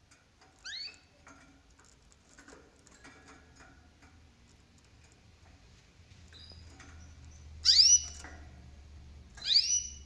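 Domestic canary giving a short rising call three times: once softly just under a second in, then twice loudly near the end. Soft ticks and scuffles of the birds moving on the wire cage and perches fall between the calls.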